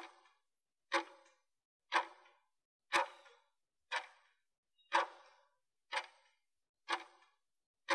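Interval timer's clock-like ticking, one short sharp tick each second, counting down the last seconds of a 30-second work interval before the break.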